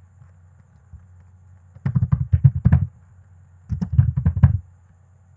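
Computer keyboard typing in two quick bursts, one about two seconds in and another near four seconds, over a faint low hum.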